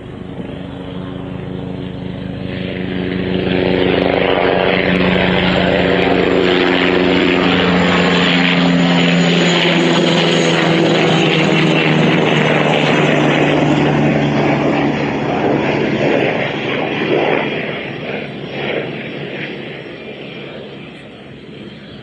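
Bundeswehr Eurocopter Tiger attack helicopter flying low past: its rotor and turbine noise swells over the first few seconds, stays loud for about ten seconds, then fades as it moves away, its pitch sinking slightly as it goes.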